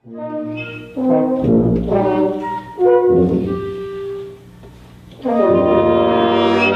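A student ensemble sounding held notes and chords together, brass-like in tone, entering in swells about a second apart with some notes sliding in pitch. It dips quieter near the middle, then a loud full chord is held to the end.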